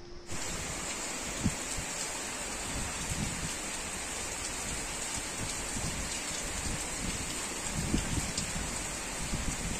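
Heavy rain falling steadily, with a few louder drop taps scattered through it.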